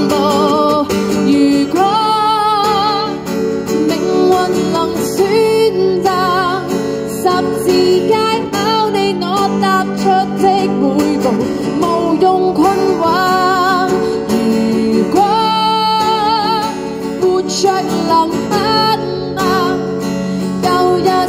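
A woman singing a Cantonese pop song to her own strummed acoustic guitar, her voice carrying the melody with vibrato on the held notes.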